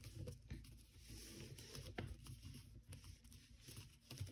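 Faint crinkling and soft clicks of 80 gsm origami paper being pressed flat and creased by fingers, over a low steady room hum.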